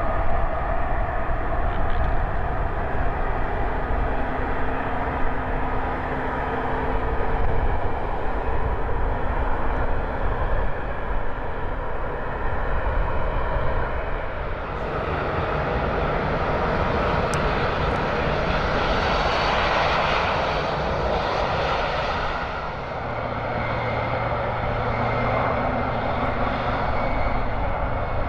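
Jet airliner on landing approach, its engine noise swelling from about halfway through, strongest a few seconds later, then easing off near the end.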